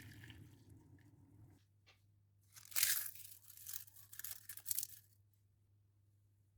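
Dry crinkling and crunching of something crisp being handled, in several quick bursts over about two and a half seconds, starting about two and a half seconds in.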